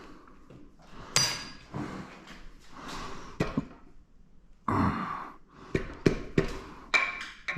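Metal engine parts clanking and knocking as they are handled during a teardown: a sharp clank with a brief metallic ring about a second in, then scattered knocks, closer together in the last few seconds.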